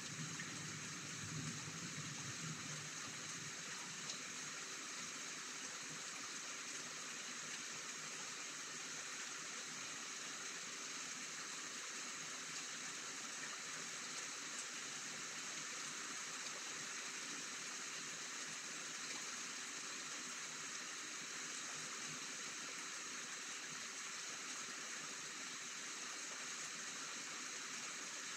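Steady rain, an even hiss with no break. A low rumble dies away in the first couple of seconds.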